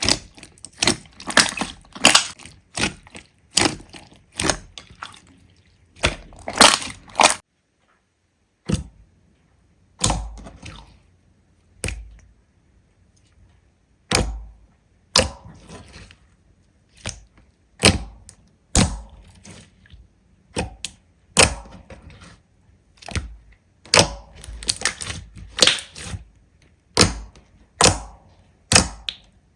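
Slime being pressed and squished by hand, giving an irregular string of sharp crackling pops and clicks, some with a soft low thump, with a brief pause about eight seconds in.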